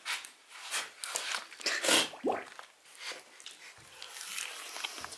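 Irregular scuffs, clicks and rustles of people moving on a stage floor littered with debris. About two seconds in there is one loud, short burst that falls in pitch.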